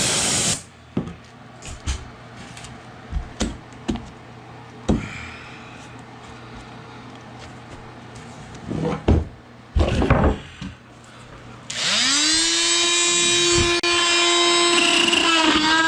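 A hiss cuts off about half a second in, then scattered knocks of wood being handled. About twelve seconds in, an electric power tool's motor spins up with a rising whine and runs steadily at full speed.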